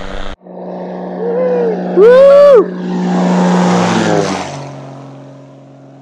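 Single-engine propeller ski plane making a low pass overhead: its engine drone grows louder, then drops in pitch and fades as it flies away. A person whoops twice, the second whoop a little after two seconds in and the loudest sound.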